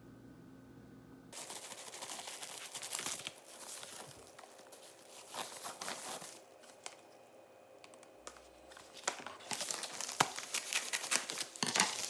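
Crinkling and rustling of something being handled, full of small crackles, starting abruptly about a second in and growing louder near the end.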